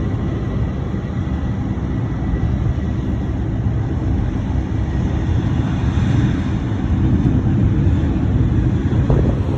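Jet airliner engines running, a steady loud roar that swells a little about six seconds in.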